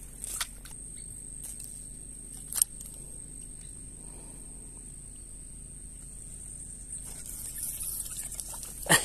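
Outdoor ambience with a steady high-pitched insect trill, growing a little louder near the end, and a few sharp clicks and rustles close to the microphone, the loudest about two and a half seconds in and again just before the end.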